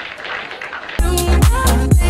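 An audience applauding, then about a second in dance music with a heavy thumping beat and a bright melody cuts in abruptly.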